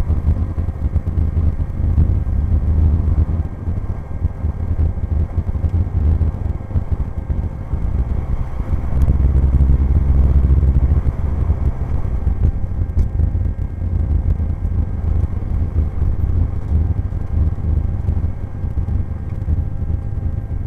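Cessna 172's four-cylinder piston engine and propeller running at low taxi power, heard from inside the cabin. It is louder for a couple of seconds near the middle.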